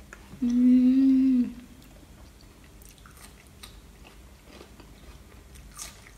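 A woman hums a closed-mouth 'mmm' of enjoyment at one steady pitch, about a second long, while chewing a mouthful of food. Faint chewing and mouth clicks follow.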